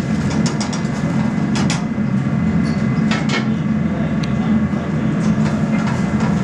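Steady low drone of a commercial kitchen's gas range and ventilation, with a metal spoon scraping and clinking against a frying pan as diced potatoes are stirred.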